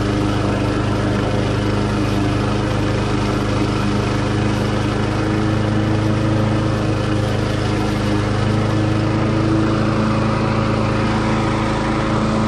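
Cub Cadet SC500K walk-behind lawn mower with a 173cc engine, running at a steady speed while cutting grass.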